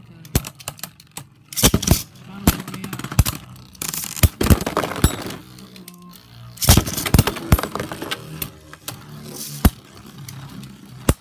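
Beyblade spinning tops clashing in a plastic stadium: repeated sharp clacks, with loud clusters of hits about two, four to five, and seven seconds in, as one top bursts apart into its pieces.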